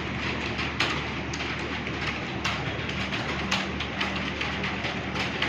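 Many computer keyboards being typed on at once, a dense irregular clatter of key clicks over a steady low hum.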